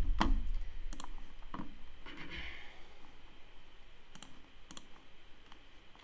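A handful of sharp, irregularly spaced computer clicks from a mouse and keyboard as windows and browser tabs are switched.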